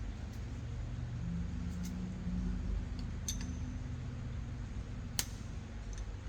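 A few small metallic clicks and clinks of tools and parts being handled, one with a brief ring and the loudest near the end, over a steady low hum.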